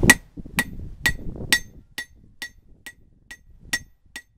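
Hand hammer striking a red-hot coil-spring-steel axe head on an anvil: about ten ringing blows at a steady two per second, the first hardest and the later ones lighter.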